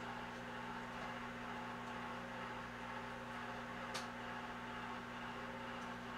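Microwave oven running with a steady electrical hum. A single short click comes about four seconds in.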